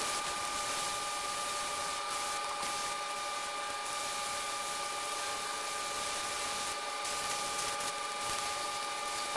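Aerosol spray paint can spraying white paint onto boxes, heard as a steady hiss with a few stronger spurts, over a faint steady high tone.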